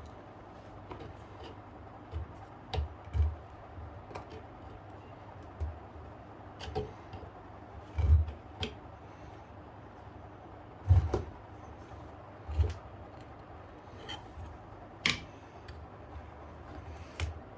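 Irregular knocks and clunks from hands working a washing machine's water-heating element loose and out of the tub: about a dozen short hits, the loudest about 8 and 11 seconds in.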